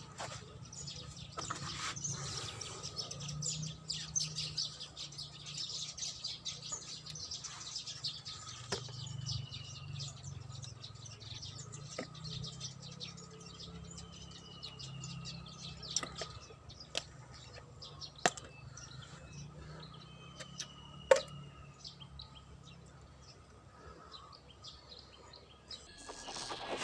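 Birds chirping and calling, with a few short falling whistles among the chirps, over a low steady rumble. Several sharp clicks cut in, the loudest about three-quarters of the way through.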